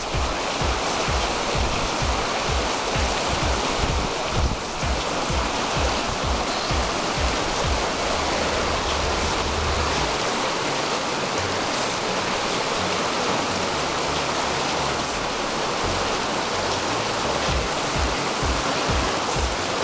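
Rushing mountain stream, a steady hiss of white water, with wind buffeting the microphone.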